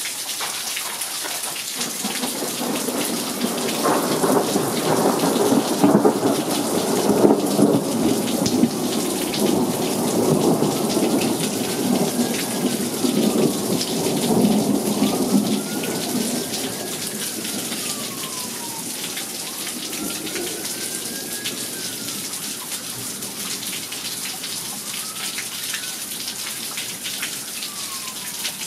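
Steady rain falling on a patio and garden, with a long rolling rumble of thunder from about two seconds in that is loudest around six to eight seconds and fades by about sixteen seconds. From about ten seconds in, a distant siren wails, slowly rising and falling about every four to five seconds.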